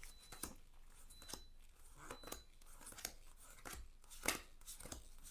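Glossy tarot cards being handled and laid down one after another: a series of faint, irregular snaps and clicks of card stock, the loudest about four seconds in.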